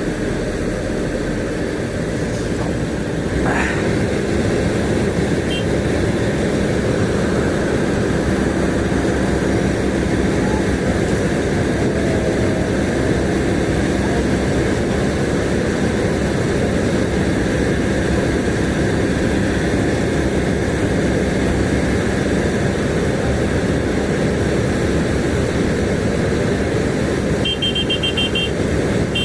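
A heavy vehicle's engine running steadily with an even hum. A quick string of short, high beeps sounds near the end.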